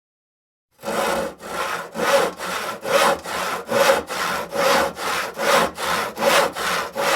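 Hand saw cutting through wood in steady back-and-forth strokes, about two strokes a second, starting just under a second in.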